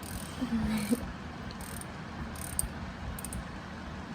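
Scattered faint clicks and metallic taps of a wrench being fitted to and worked on an oil pan drain plug.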